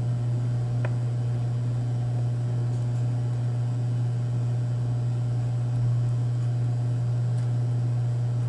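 Steady low hum with a faint click about a second in.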